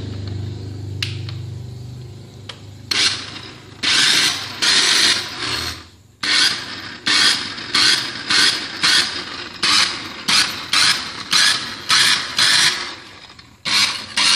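Maspion hand mixer running with a very rough sound: a steady motor hum for the first two seconds, then repeated harsh rattling bursts with short gaps between them. The roughness comes from play in the motor shaft, which the repairer puts down to a broken bearing seat or a worn bearing.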